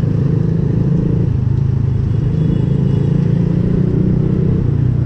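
Motorcycle engine running while riding, its note dropping and rising a few times as the throttle changes.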